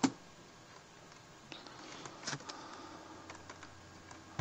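Keystrokes on a computer keyboard: one sharp key press right at the start, then a few faint, scattered taps.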